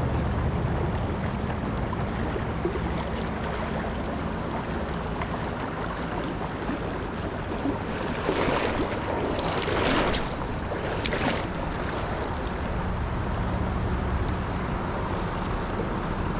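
Steady rush of creek water with wind rumbling on the microphone, and three short noisy bursts about halfway through.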